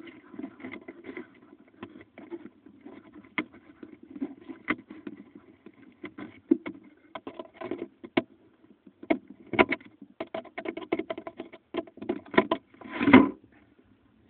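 Irregular clicks, knocks and rubbing close to the microphone, thickening in the second half, with one longer, louder scrape about thirteen seconds in: handling noise.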